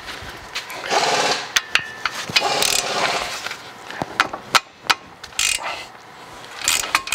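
Socket wrench on the 17 mm brake caliper bracket bolts as they are broken loose: a few short scraping, ratcheting bursts and scattered sharp metal clicks.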